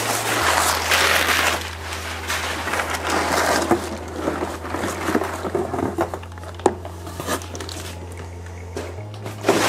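Crumpled brown packing paper rustling and crinkling as it is pulled out of a cardboard shipping box, loudest in the first couple of seconds. Softer handling noises follow as a hard case is lifted out of the box, with a sharp knock about two-thirds of the way through and another near the end.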